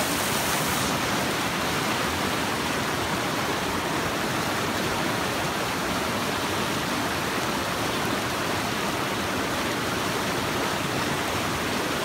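Fast mountain river rushing over rocks close by: a steady, unbroken whitewater noise.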